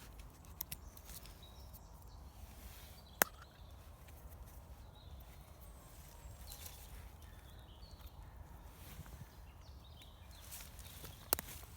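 Quiet outdoor ambience with scattered small clicks and two sharp snaps, one about three seconds in and one near the end.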